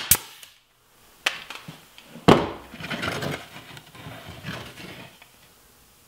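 Pneumatic nail gun firing a nail into wood, a sharp double crack at the very start. Two more sharp knocks follow, about one and two seconds in; the second is the loudest and is followed by a couple of seconds of scraping and rustling.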